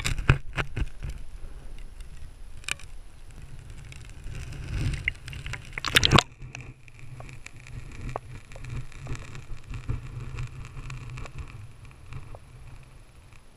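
Knocks and rustle of an action camera being handled above water, then a loud splash about six seconds in as it is plunged into canal water. After that comes the muffled underwater sound, a dull low rumble with faint small ticks and clicks.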